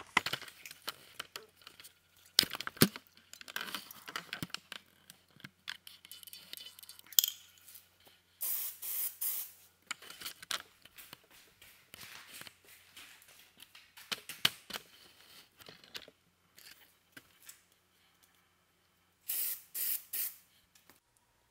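Plasti Dip aerosol can spraying in many short hissing bursts, with clicks between them, played back sped up. The loudest bursts come in two groups of three, about halfway through and near the end.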